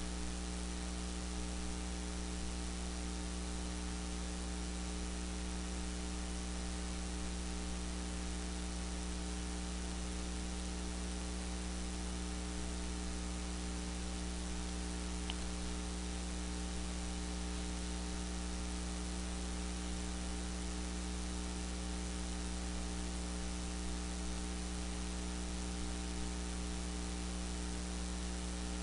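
Steady electrical mains hum with a stack of overtones over a constant hiss, unchanging throughout.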